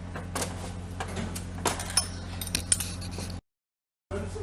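Hand tools and bolts clinking and tapping against the metal clutch hub of a Renault Mégane air-conditioning compressor as its centre bolt is worked loose. A steady low hum runs underneath, and the sound cuts out briefly about three and a half seconds in.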